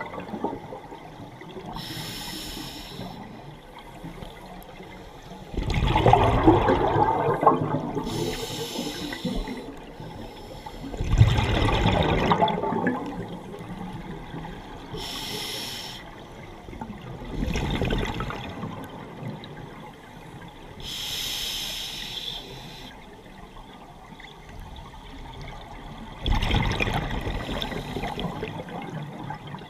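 Scuba diver breathing through a regulator underwater: a short hiss on each inhalation, alternating with a louder gushing rush of exhaled bubbles, about five slow breaths.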